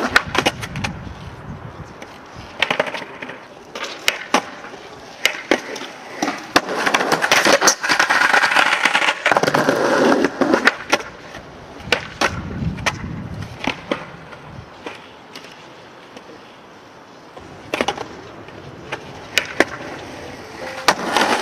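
Skateboard wheels rolling over stone paving, broken by many sharp pops and clacks as the board snaps off the tail and strikes a stone ledge block, over several tries.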